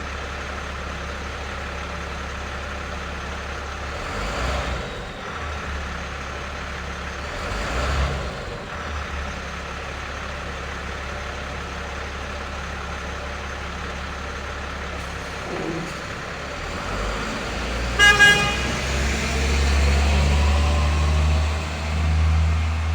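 Heavy truck engine idling with a steady low rumble, with a couple of brief louder swells. Near the end a quick double toot of the truck's horn, the loudest sound, is followed by the engine revving up with rising pitch as the truck pulls away.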